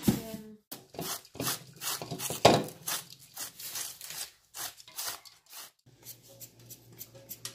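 Hand-shredding vegetables: strokes of a blade scraping through a half head of cabbage, about two a second, then about six seconds in, quicker, lighter scraping strokes of a peeler shredding a carrot.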